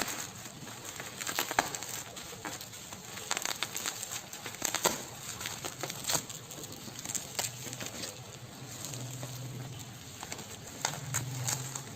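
Packaging being handled and opened: irregular crinkling, rustling and small clicks and knocks.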